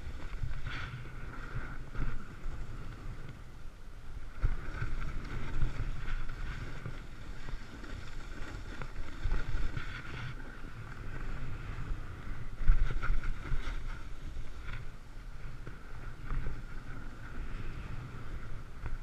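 Snowboard sliding and carving over firm, chopped-up snow: the base and edges scrape and hiss, swelling and easing unevenly over bumps, with wind buffeting the microphone.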